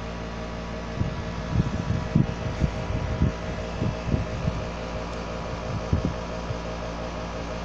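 Steady electrical hum, with a run of dull, irregular low thumps from about a second in to past six seconds: handling noise as the phone is reached for and picked up.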